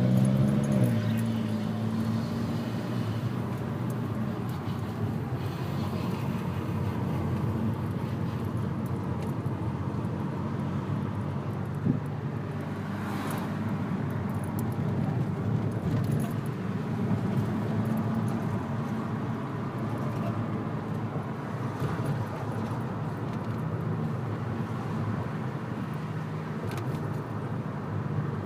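Car being driven, with a steady rolling noise from the wheel area that the owner suspects is a rock caught between the brake rotor and heat shield, or a failing wheel bearing. The engine revs briefly about a second in, and there is a single sharp click about twelve seconds in.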